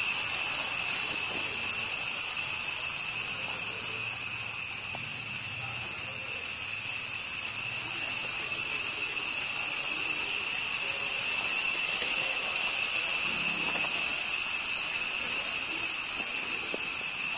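Steady high-pitched buzzing drone with several fixed pitches, the kind made by a chorus of insects such as cicadas, unchanging throughout. Faint low handling noises sit beneath it.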